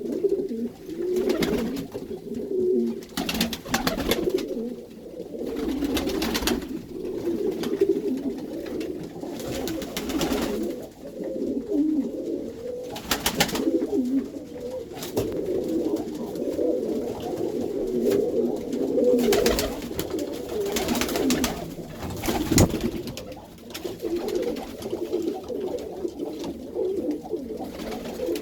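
A loft full of Iranian pigeons cooing continuously, many birds overlapping in a low, steady murmur of coos, in a small room. Brief rustling bursts break in now and then, about nine times.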